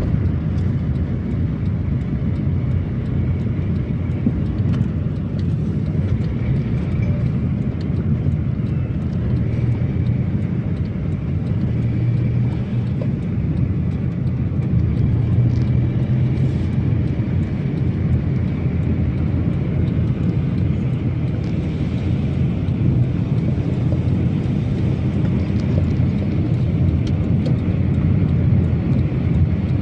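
Steady low rumble of a car driving along a road: engine and tyre noise heard from inside the moving car.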